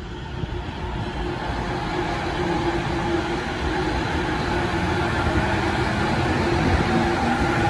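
JR East E231-series electric commuter train pulling away from the platform. Its traction motors whine at a few steady pitches over the rumble of the wheels on the rails, and the whole sound grows steadily louder as the cars move past.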